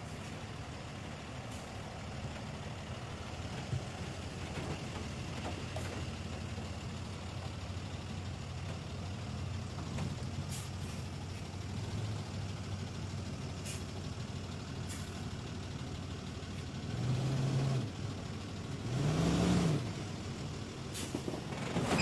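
Medium-duty flatbed tow truck's engine running as the truck pulls away under load, with a steady low hum, then revving up and falling back twice near the end.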